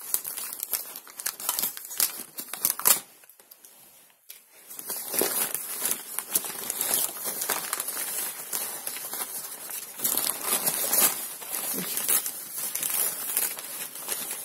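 Packing paper crinkling and rustling as hands unwrap a potted orchid from its wrapping, with a short lull about three seconds in before the rustling picks up again.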